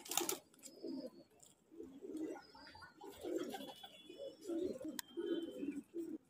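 Domestic pigeons cooing: a run of low, pulsing coos, one after another. A short sharp rustling noise right at the start, and a click about five seconds in.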